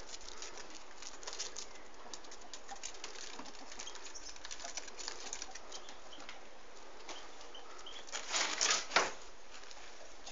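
Ferret's claws lightly scratching and ticking on a wooden hutch roof, with a louder scrabbling rustle about eight seconds in that ends in a sharp knock as it gets down.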